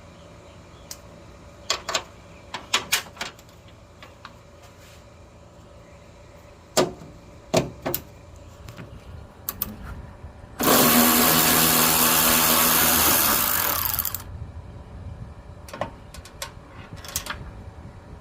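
Power drill spinning for about three and a half seconds with a steady whirring hum, most likely driving out a 7mm grille fastener. It is preceded by several light clicks and knocks of tools being handled.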